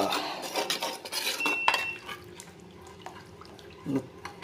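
A steel spoon stirring thick curry gravy in an earthen clay pot (manchatti), scraping and clicking against the pot's sides, with one brief ringing clink about a second and a half in. The stirring grows quieter in the second half.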